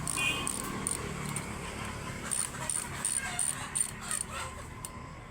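A dog whining with a short, high-pitched call near the start, over a series of brief high chirps.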